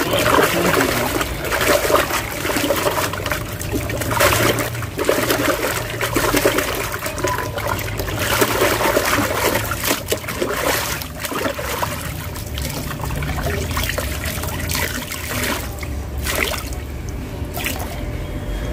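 A sponge from the fish tank being washed by hand in a plastic basin of water: it is swished, rubbed and squeezed, with irregular sloshing and trickling as the water is wrung out.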